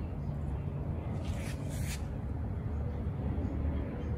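A steady low hum throughout, with a brief rustle of leaves between about one and two seconds in as a lemon tree branch is handled.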